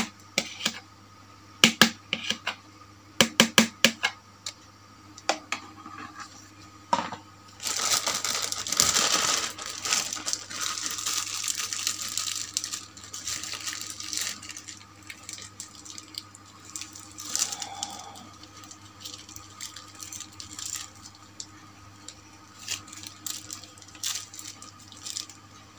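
A spoon clicking and knocking against a plastic bowl in quick sharp strokes over the first few seconds, then a plastic bag crinkling for several seconds as bait is packed into it, with scattered light knocks after.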